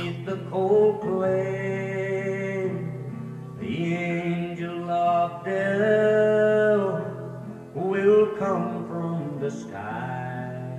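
A song playing: a man singing long held notes over instrumental backing.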